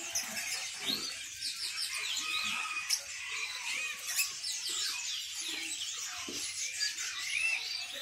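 Many caged canaries singing at once, a dense overlapping chorus of quick chirps, trills and whistles. These are birds in full song.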